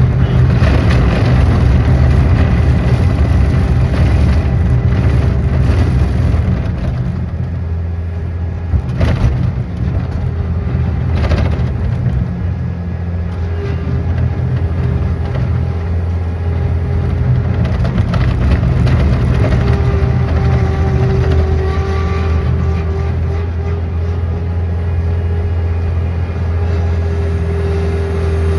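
An engine running steadily, with a couple of brief knocks about nine and eleven seconds in.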